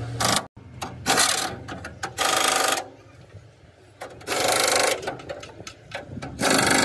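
A power tool run in five short bursts of rapid mechanical rattling, each about half a second long.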